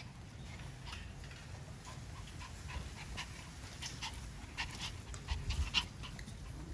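Small puppies panting and scuffling as they play-fight, with scattered light clicks throughout.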